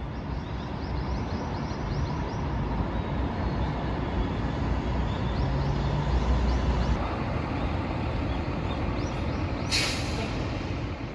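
Steady rumbling background noise, with a short loud hiss about ten seconds in.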